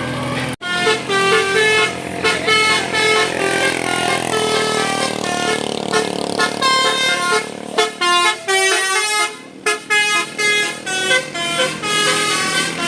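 Tour bus 'Basuri' telolet musical horn playing a fast melody of short, changing-pitch toots, with a few brief pauses partway through, over the bus's engine.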